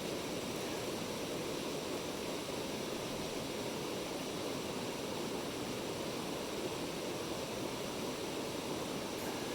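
Mountain stream rushing water, a steady, unbroken rush.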